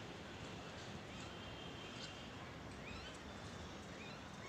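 Mynas calling faintly: a scattering of short chirps and rising whistles, with one held whistle about a second in.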